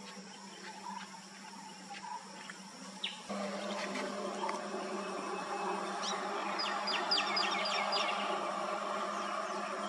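Outdoor insect buzz and birdsong, with scattered short bird calls and a quick run of sharp chirps about six to eight seconds in. About three seconds in, the steady background hum suddenly gets louder.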